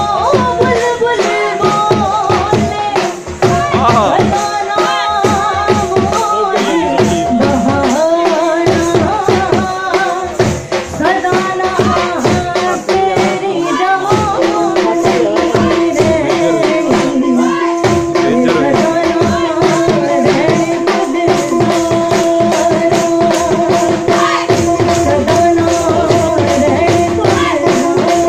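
Punjabi folk music for the Luddi dance: singing over a fast, steady drum beat with jingling, rattling percussion. About halfway through, the wavering sung line gives way to a long held note under the beat.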